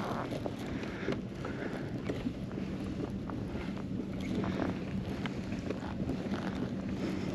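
Wind on the microphone and water moving around a drifting kayak, with a faint steady hum and scattered light clicks.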